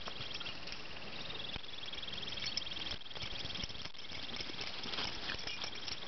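Summer meadow ambience: a steady, high, fast-pulsing trill that fades for a couple of seconds mid-way, with scattered light rustles in the grass.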